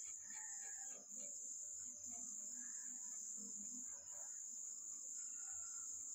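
Crickets trilling: one steady, high-pitched, unbroken drone with a few brief breaks.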